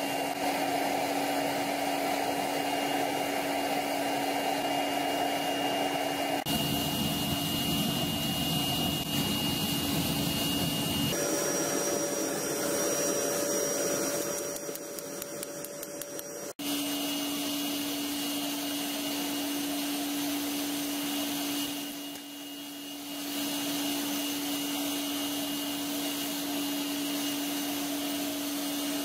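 Gas forge burner running: a steady rushing noise with a constant hum. The sound changes abruptly a few times and dips briefly about two-thirds of the way through.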